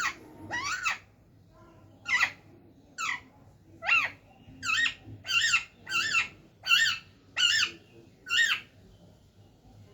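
Pet parrot giving a run of short, sharp squawking calls, about eleven in a row, coming faster in the middle and breaking off about a second before the end.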